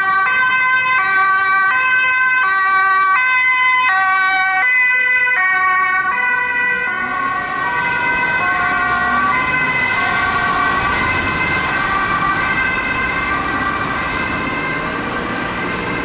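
Dutch ambulance two-tone siren, alternating a high and a low note about every 0.6 s. It is loud and clean at first, then from about 7 s in it grows fainter and blurred as the ambulance moves away, over traffic noise.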